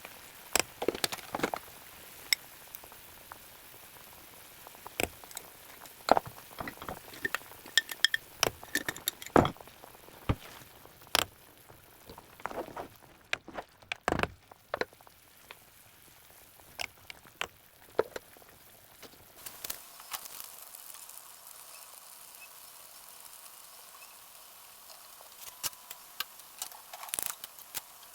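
Kitchen clatter during cooking: a scattered run of sharp clicks and knocks of utensils against dishes and pans over a faint steady hiss. The knocks are frequent for the first twenty seconds or so, then thin out to a few.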